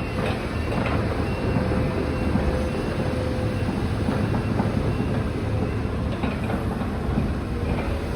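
Demolition excavator at work: the diesel engine and hydraulics run steadily under a constant clatter and crunching of knocks, with a faint steady whine.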